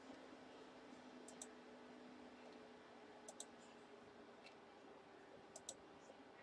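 Faint pairs of sharp computer-mouse clicks, a pair about every two seconds, over a faint steady hum.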